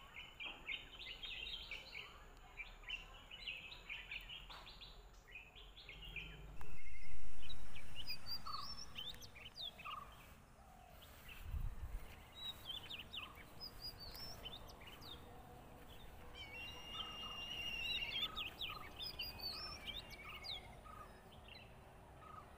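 Outdoor garden ambience with birds chirping and calling: a dense chatter of quick chirps for the first several seconds, then scattered whistled calls rising and falling. About seven seconds in, a sudden loud rush of noise starts and fades away over a few seconds.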